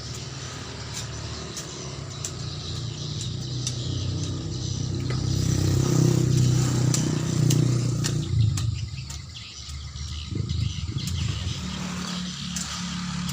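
An engine running, growing louder until about halfway through, then easing off.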